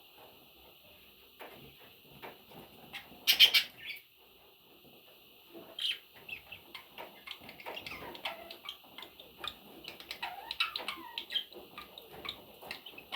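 Pet budgerigars chirping and warbling over a steady background chatter of many birds. A brief loud burst comes about three seconds in, and the warbling grows busier from about halfway.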